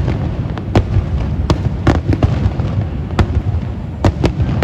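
Aerial fireworks going off: a string of about seven sharp cracks and bangs, irregularly spaced, over a continuous low rumble of distant bursts.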